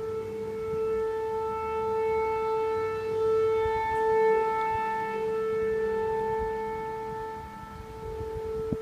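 A steady, siren-like droning tone with a row of overtones, holding one pitch while it slowly swells and fades in loudness, with a short click near the end. It is a recording of one of the unexplained siren-like noises reported over the UK, whose source is unknown.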